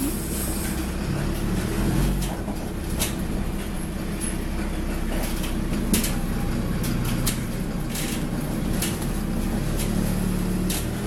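Ikarus 405 city bus on the move, heard from inside the passenger cabin: the diesel engine running steadily, with scattered rattles and knocks from the body, the loudest knock about six seconds in.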